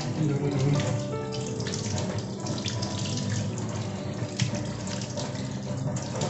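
Water splashing and sloshing in a stainless steel sink as a whole raw chicken is rinsed and rubbed by hand.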